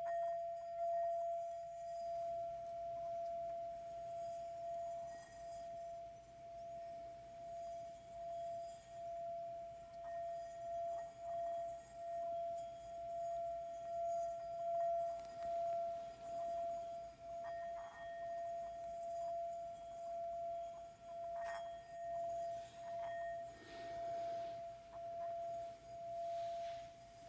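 Sound-bath music of a singing bowl: one steady ringing tone that swells and fades about once a second, with fainter higher overtones above it.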